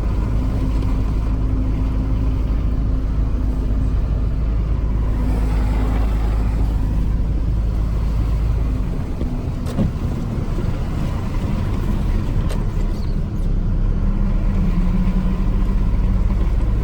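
Inside a pickup's cab while driving: a steady engine and road rumble. The deepest part of the rumble eases about nine seconds in and builds back a few seconds later, with a single sharp click near ten seconds.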